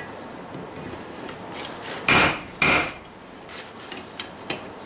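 Two heavy hammer blows on hot steel on a Vulcan 90-pound cast-iron anvil, about half a second apart, each with a short metallic ring.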